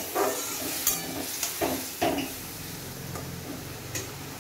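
Metal spatula scraping and knocking against an aluminium kadai, about four strokes in the first two seconds, over a steady sizzle of potatoes and ground spices frying in oil with a little water. The masala is being sautéed until it thickens, and the sizzle carries on alone after the stirring stops, with one light tap near the end.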